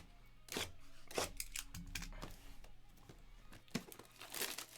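Packaging crinkling and tearing, a run of small irregular crackles and rustles, as a box of trading cards is unwrapped.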